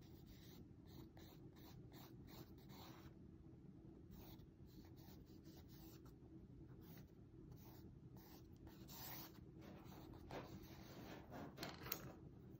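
Faint pencil strokes scratching on sketchbook paper: many short, quick lines one after another, a little louder and busier near the end, with a single sharp tick near the very end.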